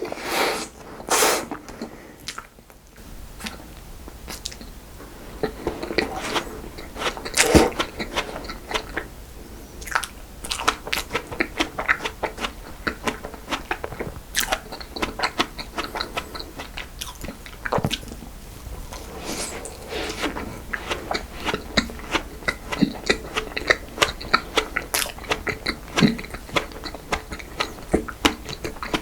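Close-miked eating of cream desserts: steady wet chewing with many quick small crunchy crackles, and a few louder bites, the strongest about seven and a half seconds in.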